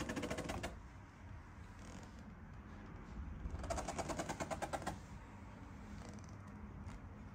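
Two short runs of rapid, evenly spaced mechanical clicking, about a dozen clicks a second. The first fades out about half a second in; the second starts about three and a half seconds in and lasts a little over a second. Faint room noise lies underneath.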